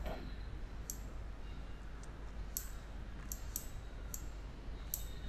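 Computer mouse clicking: several sharp single clicks, irregularly spaced, over a faint steady low hum.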